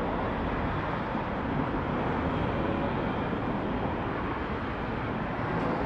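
Steady outdoor street noise: an even wash of traffic sound with no distinct events.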